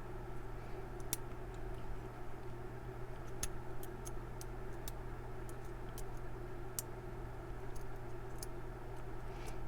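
Light, irregular metallic clicks and ticks of a lock pick and tension tool working the pins of a Paclock PL1 laminated steel padlock, over a steady low hum.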